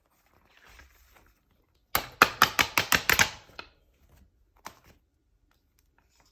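Punched paper pages being pulled off a disc-bound planner's discs: a quick run of about eight sharp snapping clicks, then one more click a second later.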